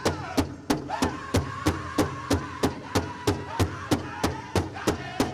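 Powwow drum struck by a drum group in a steady beat of about three strokes a second, with the singers' voices over it, holding a long note through the middle.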